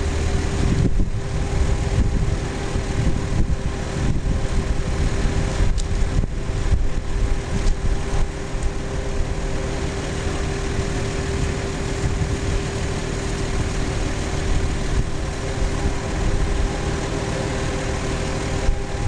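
An engine running steadily at idle: a low rumble with a constant hum that does not change.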